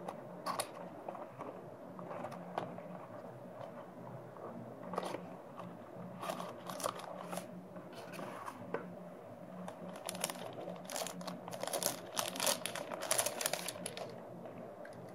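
Small cardboard toy box being handled and opened, then a thin clear plastic bag crinkling and rustling as the die-cast model car is unwrapped from it. Scattered light taps and rustles, growing thicker and louder over the last few seconds.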